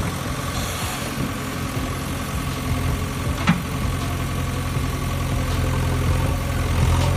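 An engine idling steadily, with one brief click about three and a half seconds in.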